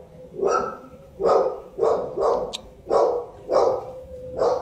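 A dog barking repeatedly, about seven barks at an uneven pace, roughly one every half second to a second.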